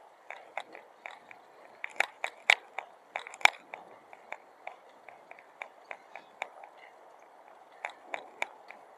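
A quick, irregular run of sharp taps or clicks, several a second, loudest a couple of seconds in and again near the end, over a faint steady background hum.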